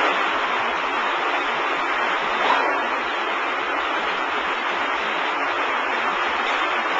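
W & H tilt-tray sortation conveyor running: a steady, even rush of machine noise, with a short rising squeal about two and a half seconds in.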